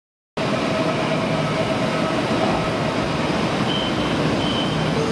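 Steady noise of Kotoden electric trains standing at a covered station platform, with a few faint steady tones. It cuts in abruptly out of silence about half a second in.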